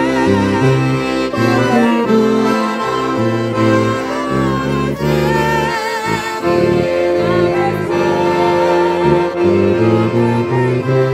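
Piano accordion playing chords and melody right at the microphone, with a woman's voice singing over it with a wavering vibrato.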